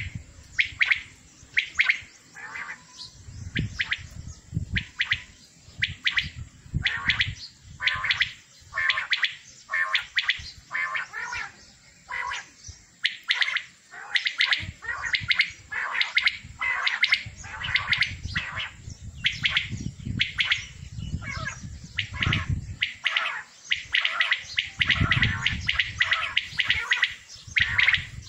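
Many caged male quails (batair) calling at once, short repeated calls overlapping one another with barely a pause. Intermittent low rumbling sits beneath the calls.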